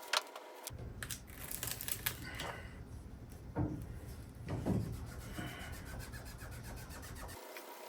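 Rubbing and scraping strokes as a vinyl decal is pressed and smoothed down onto the truck's painted panel, with two louder strokes in the middle, over a steady low hum.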